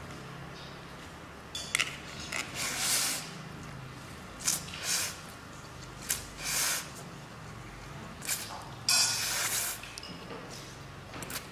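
Spicy instant noodles being slurped and chewed close to the microphone: a series of short wet slurps, the longest and loudest about nine seconds in.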